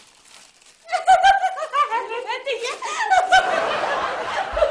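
A woman laughing in quick, high-pitched bursts, starting about a second in.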